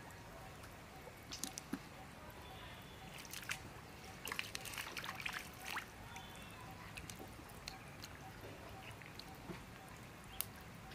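Shallow water sloshing and dripping in small, irregular splashes, busiest around the middle.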